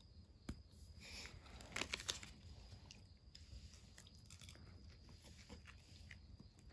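Faint crinkling and crunching from handling wrapped ice cream, with a cluster of soft crackles about two seconds in, over quiet room tone.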